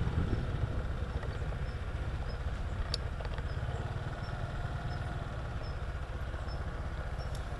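Honda PCX150 scooter's single-cylinder engine easing off and settling into a steady idle, with one sharp click about three seconds in.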